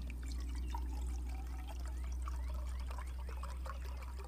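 Water pouring in a steady trickling stream from a plastic water bottle into a small metal backpacking cook pot, over a steady low rumble.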